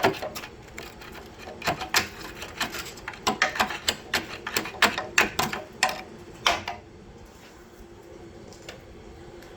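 Irregular sharp metallic clicks and clanks from hand tools working a subframe bolt whose welded-in cage nut has broken loose and spins. They come a few a second, bunch up in the middle and stop about six and a half seconds in.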